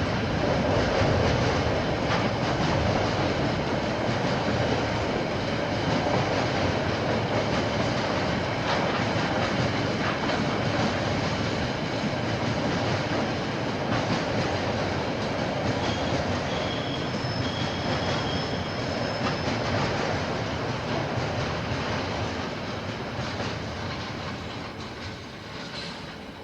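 A KiwiRail train passing, its wagons rumbling and rattling over the rails, with faint high wheel squeals partway through; the sound fades away near the end as the train moves off.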